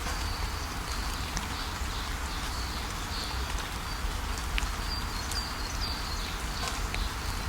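Waterfall rushing steadily, with birds chirping in many short high calls.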